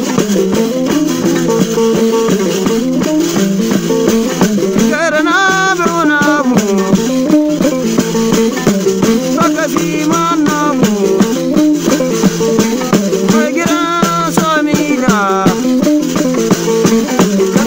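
Traditional Sahelian music: small skin-covered plucked lutes playing a repeating melody over a dense rattling rhythm, with a voice singing ornamented phrases that come in about five seconds in and recur several times.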